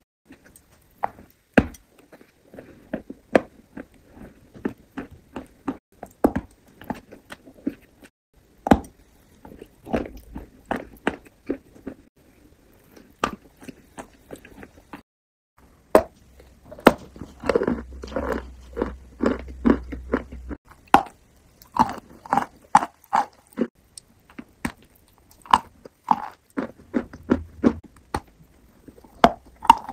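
Close-miked eating sounds from cookies and cream cakes: wet chewing, sticky lip and mouth smacks and sharp crunchy clicks at an irregular pace, with a short pause about halfway.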